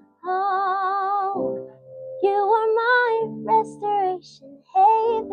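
A female voice singing long wordless notes with a wavering vibrato over held keyboard chords, closing out a Christian worship song.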